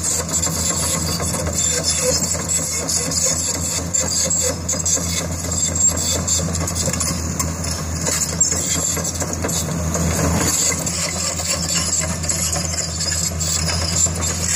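Caterpillar 320C excavator's six-cylinder diesel engine running steadily at a low, even pitch.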